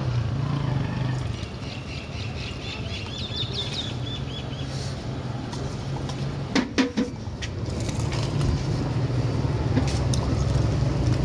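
Steady low engine hum, with a quick run of high chirps a couple of seconds in. A few sharp clinks follow about six and a half seconds in.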